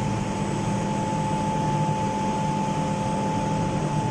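Steady hum of a commercial boiler plant room's running machinery, boilers and circulating pumps, with a thin constant whine over a low drone.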